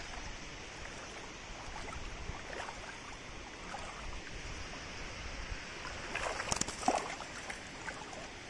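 Shallow reservoir water lapping steadily, with a few small splashes about six to seven seconds in as hands work a fish into a mesh keep net in the water.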